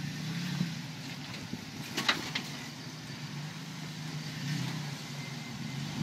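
Jeep Wrangler JK's engine running steadily at low revs while it crawls over rock, with two short sharp knocks about two seconds in.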